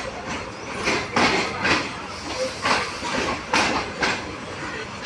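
Railway station platform noise: a steady hiss with irregular knocks and scuffs, about one every half second to a second.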